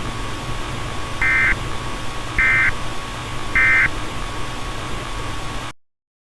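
Three short warbling bursts of EAS/SAME digital data, the end-of-message code that closes a weather radio alert, each a fraction of a second long and about a second apart, over steady broadcast hiss and a faint constant tone. The audio cuts off abruptly into dead silence near the end.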